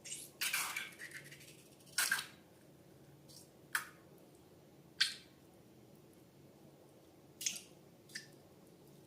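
Slime being handled and squished: a run of short, wet, sticky squelches and crackles, a longer one near the start, then single ones every second or two.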